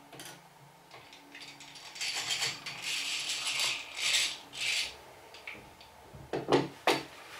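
Hand drill boring a pilot hole into wood, its gearing and bit whirring and rubbing in a few spurts. Then come a few sharp knocks near the end as the drill is put down on the bench.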